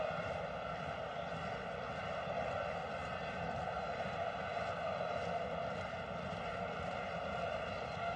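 Steady droning din of a large stadium crowd at a football match, held at an even level with no break.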